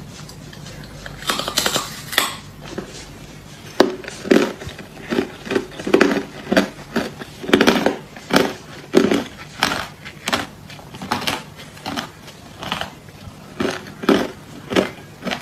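Hard clear ice being bitten and chewed. A brief crackly crunching comes about a second in, then a run of sharp crunches about twice a second.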